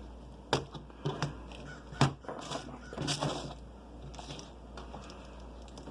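Hands handling small computer-build parts: a few sharp clicks and knocks about half a second, one second and two seconds in, with short plastic rustles and rattles, then quieter fiddling.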